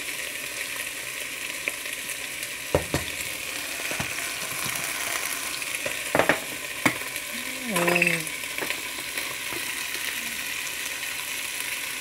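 Chicken pieces sizzling in hot oil in a pot, a steady frying hiss, with a few sharp knocks between about a quarter and two-thirds of the way in.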